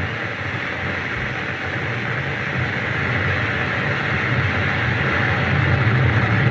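Harsh noise music: a dense, unbroken wall of distorted static from tabletop noise electronics (effects pedals and a mixer) through a PA. It dips a little at the start, then slowly builds back up, with a faint thin high whine over it for the first few seconds.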